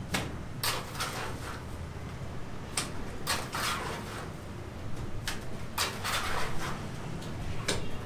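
A plastering trowel scraping wet mortar, picked from a pail and worked onto a rendered wall, in a series of irregular short scraping strokes, some sharp and some longer, over a low steady rumble.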